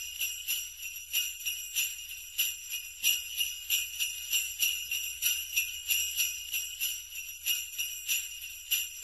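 Jingle bells shaken in a steady rhythm, about two shakes a second, ringing on between the shakes.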